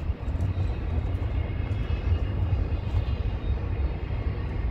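Double-stack intermodal container freight train passing, a steady low rumble of wheels on the rails.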